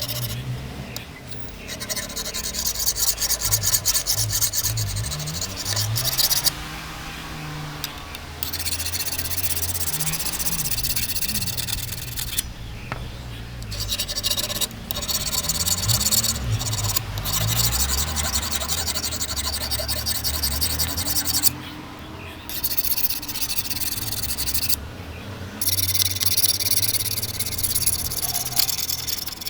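Hand file rasping along the steel blade edge of grass shears in repeated strokes, sharpening the dulled cutting edge. The strokes come in runs with a few short pauses between them.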